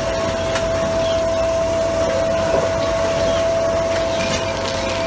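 Railway track-maintenance work train running its engine and machinery as it creeps along the track, a steady high whine held on top of a broad machine noise, with a few light metallic clicks.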